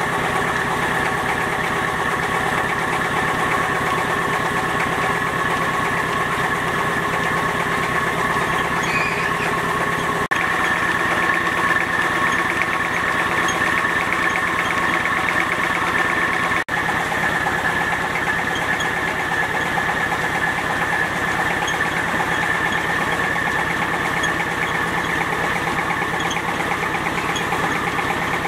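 Small stationary engine running steadily, driving a rice-grinding mill by a long flat belt as soaked rice is ground into wet batter for noodles.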